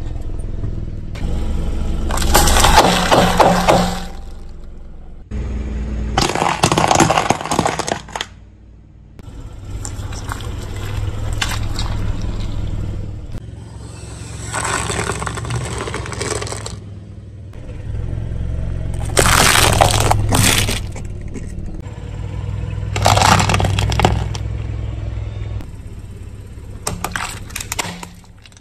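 A car tyre rolling slowly over a series of plastic, foam and jelly items and crushing them, about six separate bursts of cracking and crunching, with a low rumble from the car between them.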